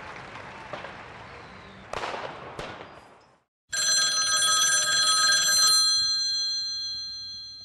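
A crash of noise dying away, with two sharp hits about two seconds in; then, after a brief silence, a bright metallic bell-like ring of several high tones sets in and slowly fades out.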